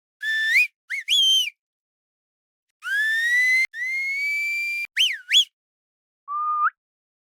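A string of separate whistle sound effects with dead silence between them: a few short rising and falling whistles, then a long whistle that rises and holds steady for about two seconds, two quick up-and-down chirps, and a lower short held whistle near the end.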